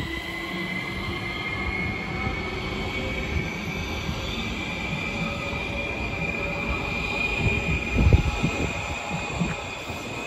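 GVB M4 metro train pulling out of the station and accelerating away: a high whine slowly rising in pitch over the rumble of wheels on rail. A louder low thump comes about eight seconds in.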